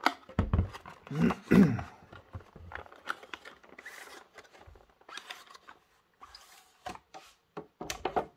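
Hands handling a clear plastic packaging insert and cardboard box: irregular plastic rustling and scraping with scattered sharp clicks.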